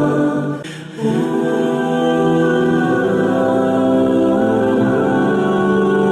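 Background music of slow, sustained chords with a vocal, choir-like sound, briefly dropping in level under a second in before carrying on.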